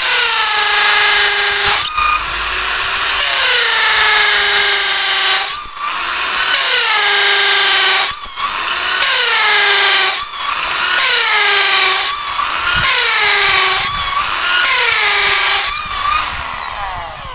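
Bosch GSB 550 impact drill in hammer mode boring a 9 mm masonry bit into an old, hard concrete wall, very noisy. It runs in repeated pushes of about two seconds, each broken by a brief dip, and after each dip the motor's pitch starts high and sags. Near the end the motor winds down.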